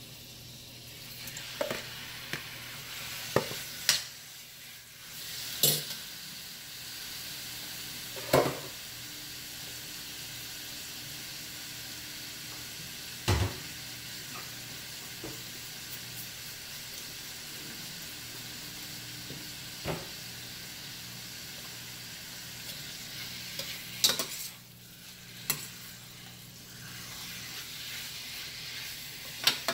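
Bite-sized chicken thigh pieces sizzling steadily in a stainless steel pot with chopped garlic, stirred with a metal spoon. The spoon clinks and knocks sharply against the pot and bowl about ten times.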